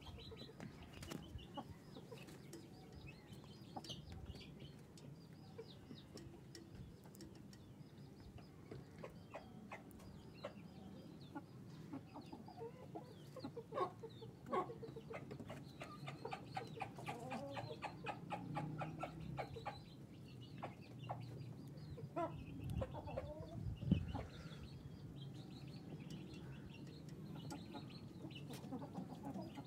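Young chickens clucking, with short calls coming in runs mostly through the middle, among many short clicks.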